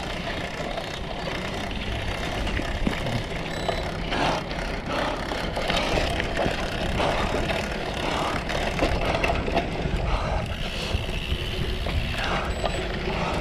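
Cyclocross bike ridden hard around a race course: a steady rumbling noise of wind and tyres, with scattered rattles and knocks from the bike over rough ground.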